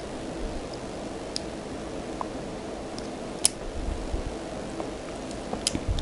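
A few faint, sharp metal clicks as jewellery pliers grip and twist a small metal jump ring on a charm, three of them a couple of seconds apart, over a steady low hum.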